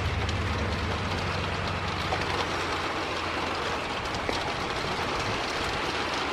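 Steady rushing noise of gusty wind and rain on the microphone during a thunderstorm, with a low rumble that fades over the first couple of seconds.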